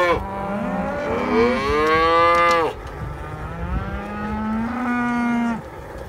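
A calf bawling twice, a long call and then a shorter one, while it is held in a calf table and branded with a hot iron.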